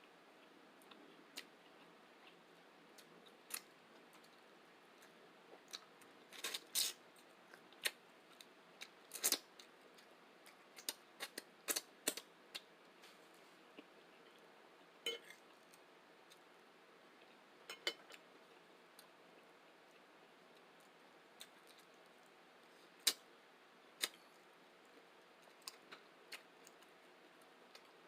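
Close-up eating sounds from a person eating shrimp and grits: irregular sharp clicks and wet smacks over a faint hiss, bunched together in the first half and more scattered later.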